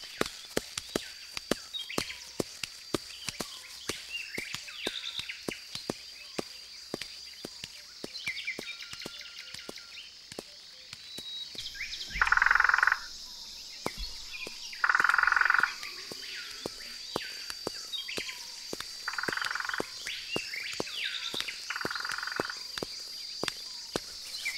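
Frogs calling: a steady run of sharp clicks throughout, and four loud rasping croaks just under a second each in the second half, over a steady high-pitched insect drone.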